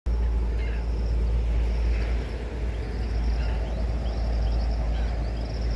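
Outdoor ambience: a steady low rumble with a few short bird chirps over it.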